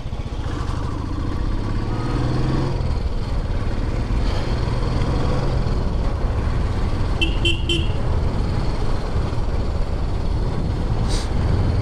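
Motorcycle engine running steadily under way, its exhaust pulsing evenly; it rises in pitch over the first few seconds as the bike accelerates. A horn gives three quick beeps about seven seconds in.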